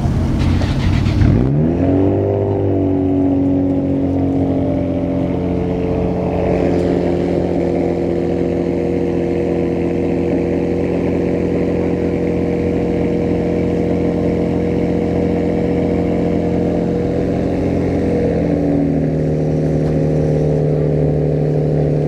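A car engine revs briefly at the start, then a Nissan 350Z's 3.5-litre V6 idles steadily. About eighteen seconds in the idle settles a little lower.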